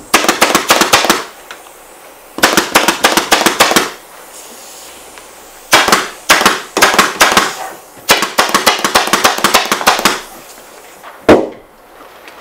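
Pneumatic upholstery staple gun firing staples in quick runs, about seven shots a second, in four bursts, driving seat webbing into a wooden chair frame. One single louder knock near the end.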